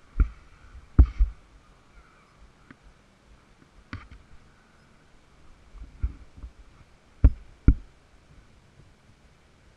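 Irregular dull thumps and knocks, about seven in all, some in quick pairs, over a faint steady background hum; no engine is running. They fit the stuck ATV, with its engine stopped, being jolted as it sits against the tree.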